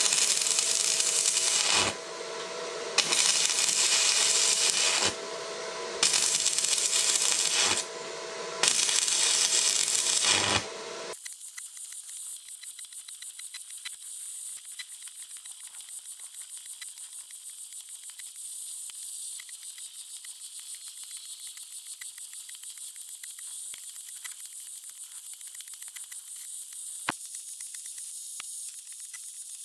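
Stick welding with a compact SUZUKID WELD-ON140 arc welder: the arc crackles and hisses in four runs of about two seconds each with short breaks between, stopping about eleven seconds in. After that comes a much quieter steady high hiss with fine crackling, and a single sharp click near the end.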